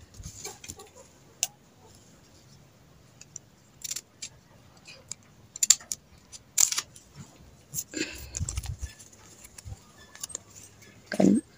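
Glossy ribbon crinkling and rustling as it is handled and cut with scissors: scattered short clicks and snips.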